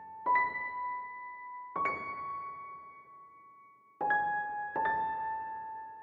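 Background music: a slow piano melody of single notes, struck four times and left to ring out.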